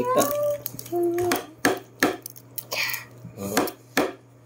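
Balut egg being tapped on a hard tabletop to crack its shell: a string of about seven sharp, separate taps.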